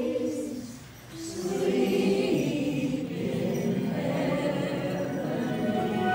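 A group of voices singing a Christmas carol together, with a short break between phrases about a second in.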